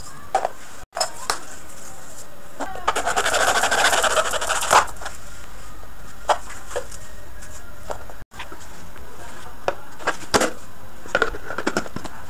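Hands handling plastic parts on a tabletop: scattered clicks and knocks over a steady hiss, with a burst of rattly, rustling handling noise near the middle. The sound drops out briefly twice.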